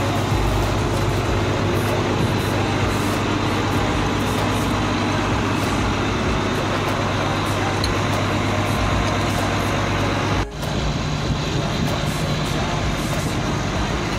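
Dongfeng Cummins 6CTAA8.3 six-cylinder diesel engine running steadily on its test run after an overhaul. About ten and a half seconds in the sound breaks off abruptly and comes back with a slightly different tone.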